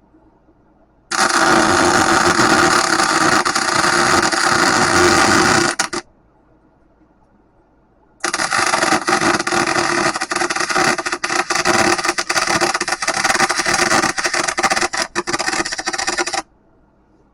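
Electric arc welding in two runs, the first about five seconds long and the second about eight, each starting and stopping abruptly with a steady crackling hiss.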